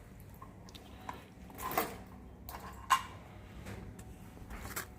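A few scattered clicks and light metallic knocks of small metal parts being handled: the bolts and strainer just taken off the transmission. The sharpest knock comes about three seconds in.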